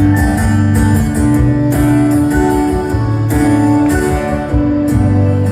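Live band music between sung lines: strummed guitar over sustained chords with a steady low bass line.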